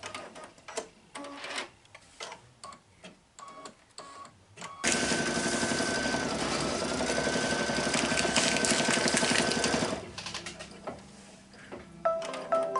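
Brother Luminaire embroidery machine stitching an appliqué design. Quieter, uneven needle strokes for the first few seconds, then about five seconds in it runs fast and loud with a steady whine, and slows back to quieter strokes about ten seconds in.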